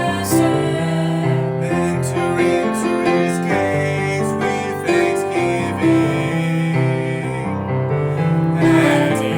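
Piano-led music with held accompanying notes, part of an original gospel-style song.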